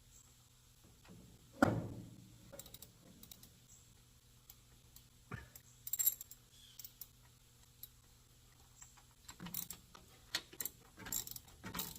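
Metal hand tools clinking and knocking against the truck's engine parts, with one louder clank about a second and a half in. Near the end a ratchet wrench clicks in short, quick runs as a bolt is turned.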